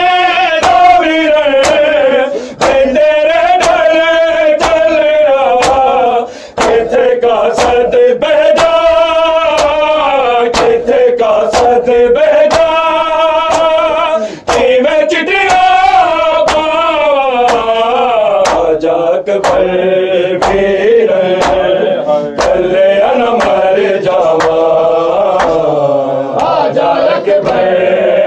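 Men chanting a noha, a mourning lament, in a steady sung melody, with sharp beats about every three quarters of a second keeping time.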